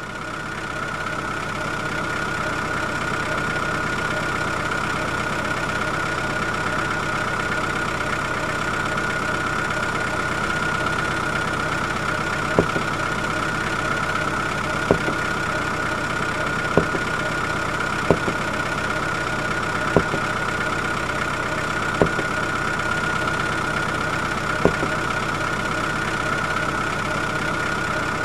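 A steady, engine-like droning hum with a strong high whine, fading in at the start. Through the middle, seven sharp clicks come about every two seconds as small plastic buckets are set down one by one.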